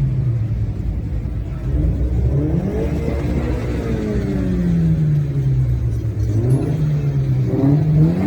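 A modified car's engine and exhaust under throttle: the engine note rises about two seconds in, falls away slowly over the next few seconds, holds steady, then climbs sharply again near the end as the car accelerates, over a constant low rumble.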